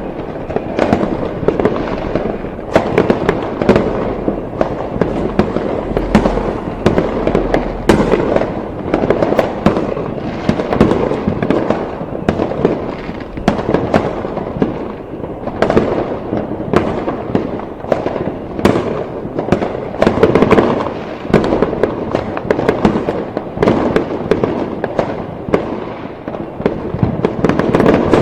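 Fireworks going off in a dense, continuous barrage: many overlapping bangs and crackles with a rolling rumble, some bangs sharper and louder than the rest.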